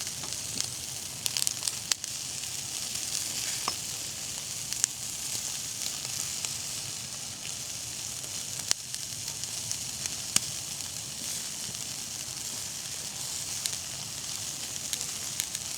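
Food sizzling steadily in a hot pan, with scattered sharp pops and spits.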